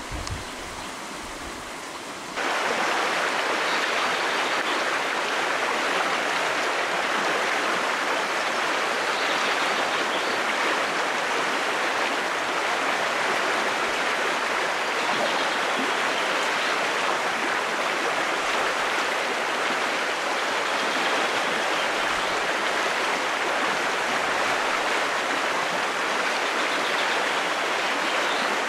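Shallow stream rushing over its bed, a steady, even rush of water that comes in abruptly about two seconds in after a quieter start.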